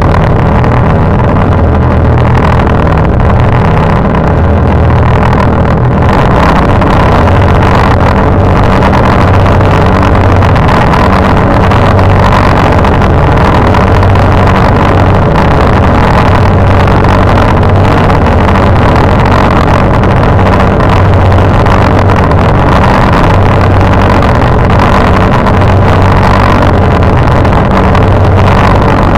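Harsh noise drone music: a loud, dense wall of distorted noise over low droning tones that shift in pitch now and then, with no beat.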